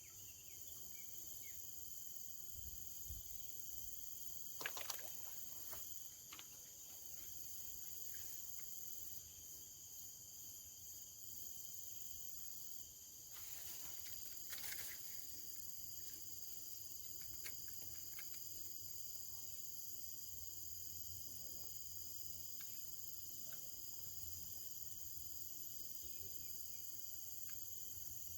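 Steady chorus of insects with several high, unbroken shrill tones layered together. A few sharp clicks about five seconds in and a short rustle about halfway through break in over it.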